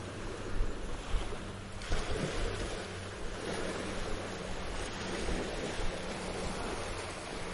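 Sea waves washing onto a beach, a steady rush of surf that swells about two seconds in, with a low steady hum underneath.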